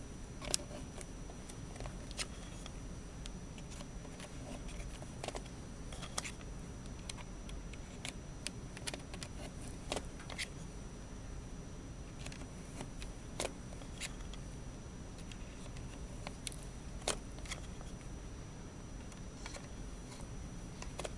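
Irregular sharp plastic clicks and light handling sounds as wires are pushed into IDC terminal blocks and the blocks are snapped closed with a small screwdriver.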